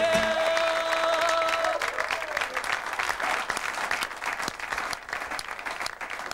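Audience applauding as a song ends: a held sung note and the backing music stop about two seconds in, and the clapping carries on, fading toward the end.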